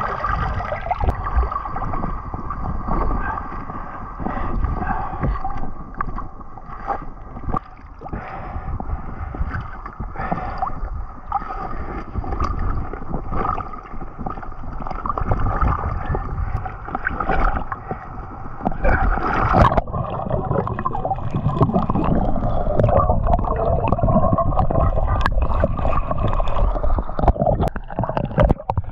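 Water gurgling and washing around a camera held underwater while snorkelling, with a sharp splash-like burst about two-thirds of the way in.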